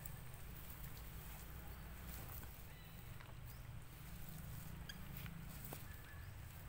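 Faint outdoor background: a steady low rumble of wind on the microphone, with a few scattered small ticks and a brief faint chirp about five seconds in.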